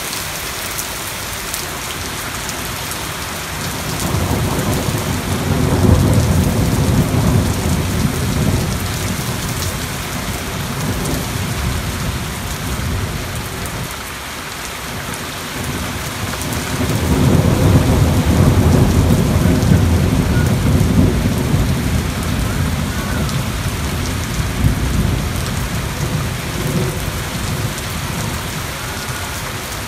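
Thunderstorm: a steady hiss of heavy rain falling, with two long, low rolls of thunder. The first swells about four seconds in; the second rumbles from about seventeen seconds until near the end.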